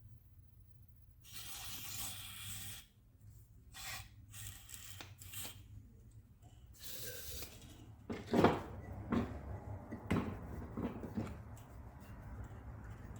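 Hand-work noises on a Fiolent hand router's parts being handled and fitted together: scattered rubbing and scraping, then a sharp knock about eight seconds in followed by a few lighter knocks.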